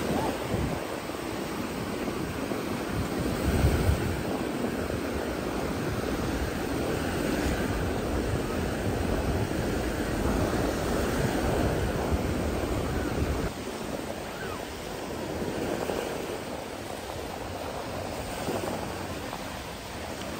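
Surf washing onto the beach in a steady hiss, with wind buffeting the microphone in a low rumble that eases about two-thirds of the way through.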